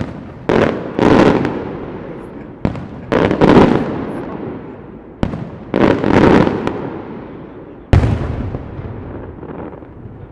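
Aerial firework shells bursting: about ten sharp bangs in quick clusters of two or three, each followed by a long rolling echo that dies away.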